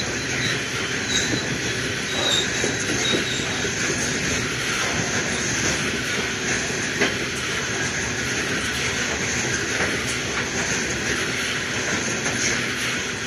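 Aurizon coal hopper wagons rolling past close by: a steady noise of steel wheels on rail. There are brief high wheel squeals in the first few seconds and a few sharp clicks later on.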